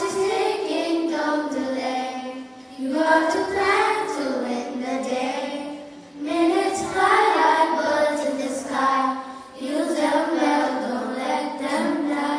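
Children singing a cheerful song together, in short phrases with brief pauses between them.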